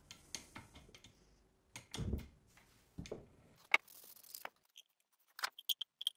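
A string of short workshop handling sounds from the rusted drill's metal parts: scattered clicks and knocks, with a heavier clunk about two seconds in and another a second later. Around four seconds in comes a brief spray-can hiss of paint going onto the parts, and sharp metal clicks near the end.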